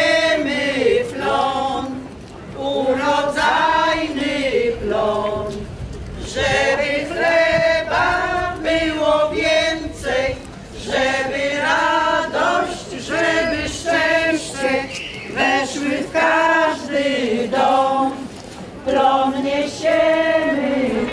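A group of women singing a traditional Polish harvest song together, unaccompanied, in phrases of a second or two with short breaks between them.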